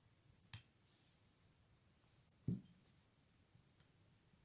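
Plastic spatula and glass bowls knocking together while henna paste is mixed: a sharp click about half a second in, a louder, deeper knock about two and a half seconds in, and a few faint ticks near the end, with near silence between.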